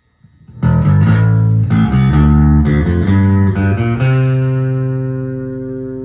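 Fender electric bass guitar played: a phrase of several plucked notes starting about half a second in, ending on a low note left ringing and slowly fading.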